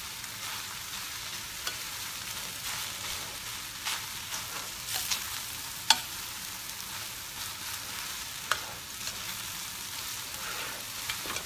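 Rice with diced Spam and carrot sizzling in a stainless steel pan as a perforated ladle stirs and presses it. The ladle clicks against the pan now and then, once sharply about six seconds in.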